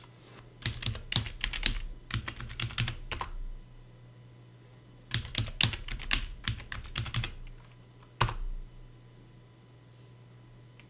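Computer keyboard typing: two quick runs of keystrokes, each two to three seconds long, as a password is typed and then retyped. A single key press follows about eight seconds in.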